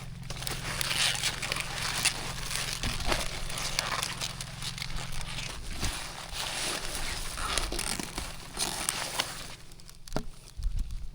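Continuous rustling and crinkling with scattered sharp clicks, easing off about ten seconds in; a steady low hum sits under it for the first half.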